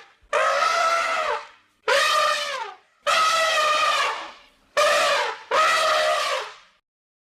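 Elephant trumpeting: five calls in quick succession, each about a second long, several sliding down in pitch as they end.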